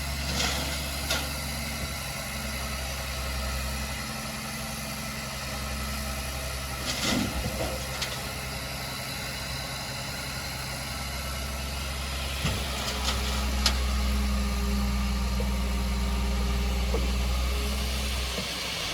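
Diesel engine of heavy earthmoving equipment running steadily at low revs, with a few sharp metallic clanks and knocks. The engine sound stops abruptly near the end.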